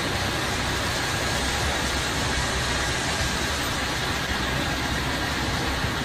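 Heavy diesel machinery of an asphalt paver and the dump truck feeding it, running steadily without change, with a faint steady high tone above the engine noise.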